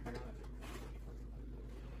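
Faint rustling and soft knocks of cardboard boxes and packaging being handled, most noticeable at the start and around half a second in, over a steady low hum.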